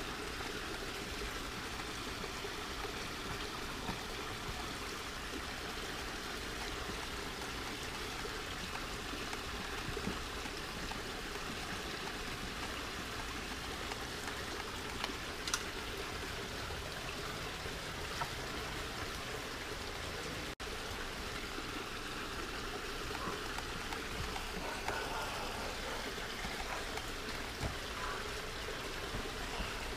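Steady trickle of running water, with a few faint clicks.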